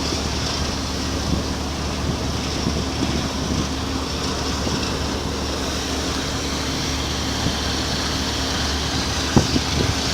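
Steady low engine drone with an even rushing noise over it, and a couple of short knocks near the end.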